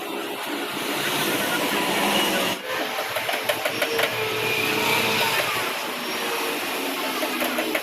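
Wood router machine running as it carves wood: a steady machine whine with scattered clicks, briefly dropping out about two and a half seconds in.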